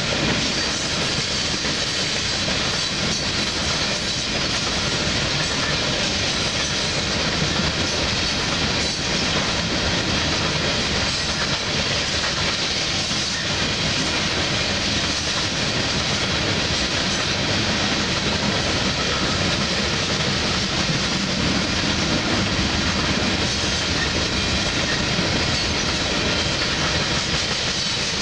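Loaded coal hopper cars of a freight train rolling steadily past, their wheels running over the rails.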